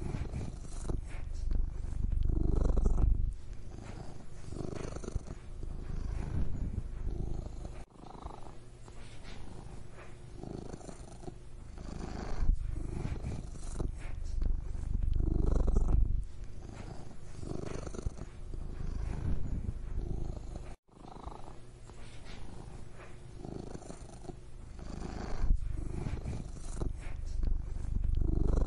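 Domestic cat purring close to the microphone: a continuous low rumble that swells and eases every couple of seconds, briefly cutting out twice.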